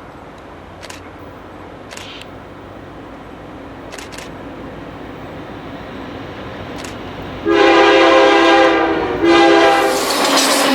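Diesel locomotive horn on a Canadian Pacific EMD SD70ACu, sounded in two blasts as the train nears: a long one about three-quarters of the way in, a brief break, then a shorter one. Under it, the train's rumble builds steadily and turns into a loud rush of the train passing close at the end.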